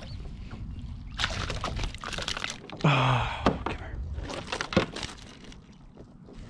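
A northern pike being netted beside a plastic kayak and lifted aboard: water splashing and the fish thrashing in the net, with a few sharp knocks on the hull and wind rumbling on the microphone.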